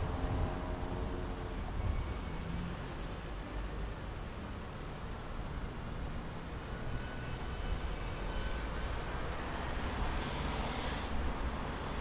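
Low, steady rumble of a stationary car heard from inside its cabin, with the noise of cars crossing the junction in front, one passing louder about ten seconds in.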